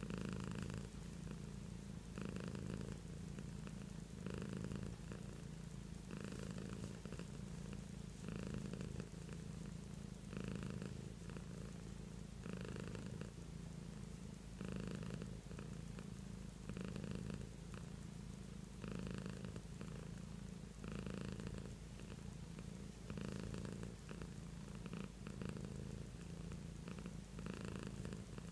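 Long-haired black-and-white domestic cat purring steadily while being petted, the purr swelling and easing with each breath about every two seconds.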